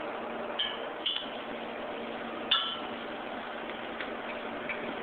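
Metal parts clinking against a truck's exhaust pipe during muffler installation: three short, sharp metallic clinks that ring briefly, over a steady hiss.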